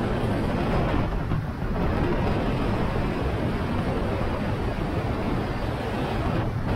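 Steady wind rushing over the microphone of a motorcycle underway, mixed with the bike's engine and road noise.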